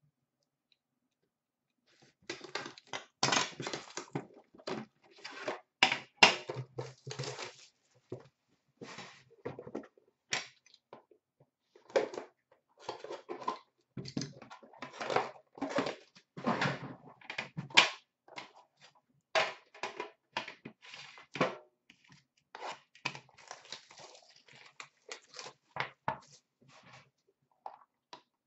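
Hands unwrapping and handling a tin of Upper Deck The Cup hockey cards: irregular crinkling, tearing and clicking that starts about two seconds in and goes on in uneven bursts.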